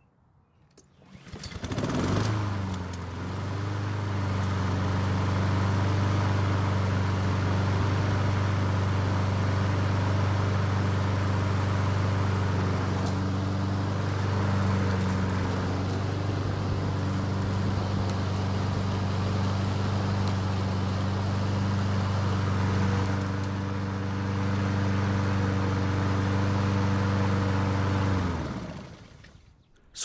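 Honda HRN 216 lawn mower's single-cylinder Honda GCV170 engine starting about a second in, briefly revving up as it catches, then running steadily at one pitch before being shut off and winding down near the end. It starts and runs fine: the earlier no-start was cured by priming it manually with fuel.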